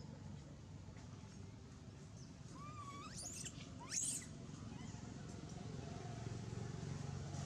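Long-tailed macaque screaming: two high-pitched squeals that rise in pitch, the second, about four seconds in, short and the loudest.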